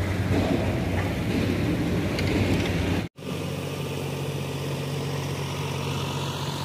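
Heavy engine running with a low rumble. About three seconds in it cuts out suddenly, and a steady, low engine hum at idle follows.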